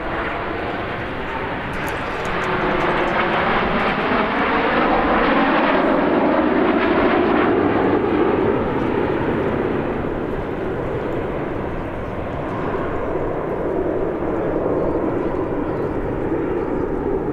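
Formation of CT-114 Tutor jets passing overhead, their single J85 turbojets making a whine that falls in pitch as they go by. It is loudest around six to eight seconds in, eases off, then swells again as the jet noise continues.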